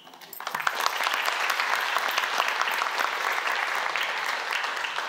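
Audience clapping, building up over about the first second, holding steady, then fading out near the end.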